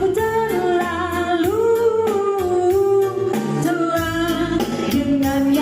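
Song with a sung melody of long held notes over a steady beat.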